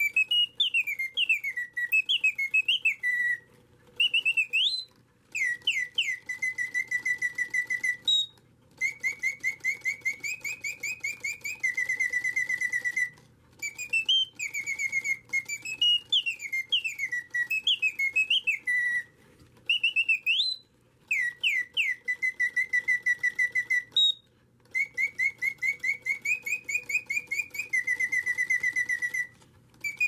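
Clockwork singing bird automaton whistling its mechanical birdsong: quick chirps that slide up and down in pitch, short rising whoops, and long fast trills, in phrases separated by brief pauses. The song runs through a set sequence and repeats about every fourteen seconds.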